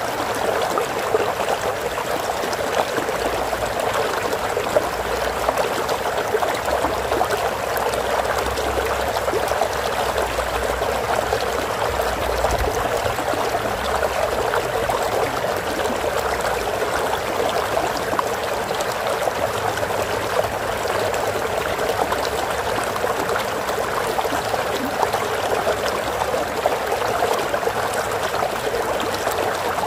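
Water flowing steadily in a stream, an even rushing and trickling.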